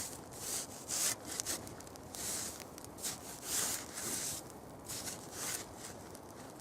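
A series of short, irregular rough scraping and rustling sounds, about eight of them, as camp gear is handled while the pot is set on the gas burner.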